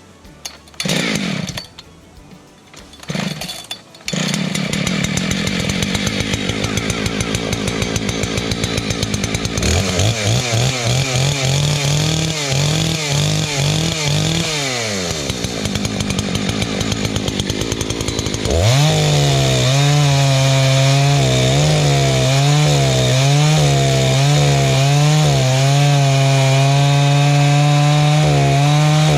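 Rebuilt Husqvarna 288XP two-stroke chainsaw starting: two short bursts, then it catches about four seconds in and runs. It is revved up and down several times, then held at high revs through a cut in wood for the last third.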